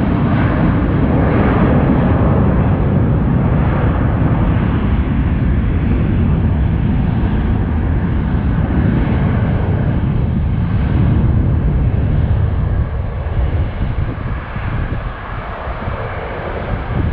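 Jet airliner's engines making a loud, steady rumble as it passes, easing off and fading from about twelve seconds in.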